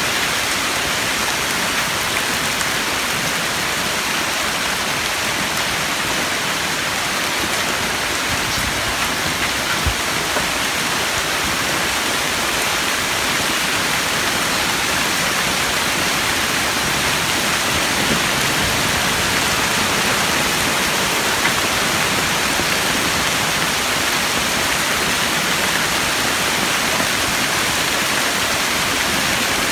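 Hail storm: a dense, steady hiss of hailstones and rain pelting the ground and surfaces, with an occasional louder single knock.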